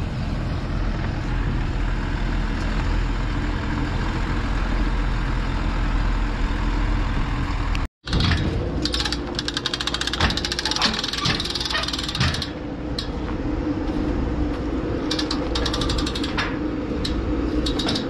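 Farm machinery engine running steadily. After an abrupt cut about eight seconds in, it runs on with spells of rapid metallic rattling.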